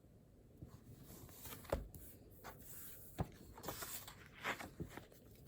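Handling noises: a few sharp knocks and bumps mixed with rustling, the two loudest knocks about a second and a half apart.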